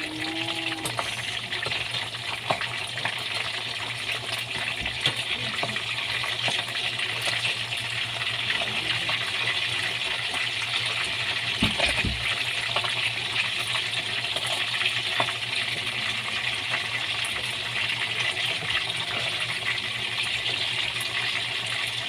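Tamarong fish frying in hot oil in a pan: a steady sizzle with a dense crackle of small pops.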